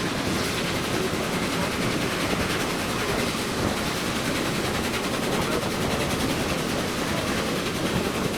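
A train in motion: a steady rush and rumble of running noise, with no clear beat.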